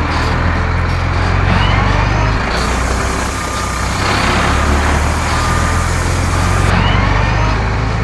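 Sound effect of a heavy vehicle's engine running steadily, with a hiss that rises for a few seconds in the middle.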